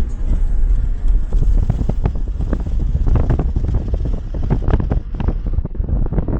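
Strong wind buffeting the microphone: a loud, low, gusty rumble with many sudden short blasts.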